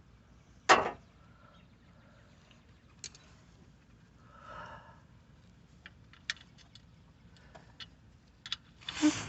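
Metal tool clinks and clicks as a 13 mm wrench is picked up and worked on the oil drain plug: one sharp clank about a second in, then scattered light ticks, and a louder rustling clatter near the end.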